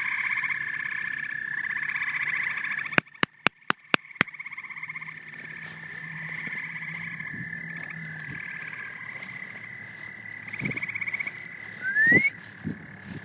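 A chorus of frogs calling in fast pulsed trills. About three seconds in, a quick run of six sharp clicks, after which the chorus goes on more quietly. Near the end comes a short rising call, the loudest sound.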